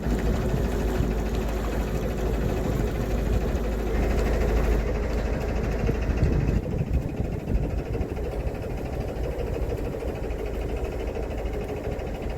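Narrowboat's diesel engine running steadily with a low drone and vibration.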